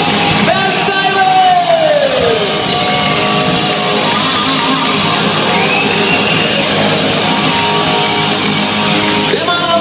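A rock band playing live and loud, with the guitar prominent and several notes bending down in pitch.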